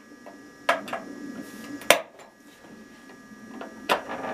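Three sharp clicks and clinks of a metal combination wrench working the top-cover fastener of a Stihl MS 261 chainsaw, about a second apart.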